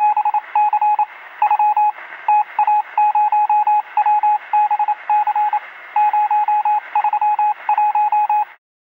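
Morse code sent as a single mid-pitched beep keyed in quick short and long tones over a bed of radio static; it cuts off shortly before the end.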